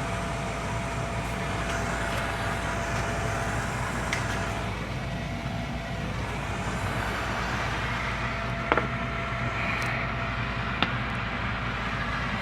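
Gas furnace's draft inducer motor running steadily on its own, with no ignition following. Two sharp clicks come near the end.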